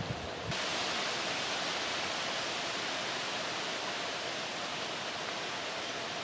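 Steady, even outdoor ambient hiss with no distinct events, setting in about half a second in.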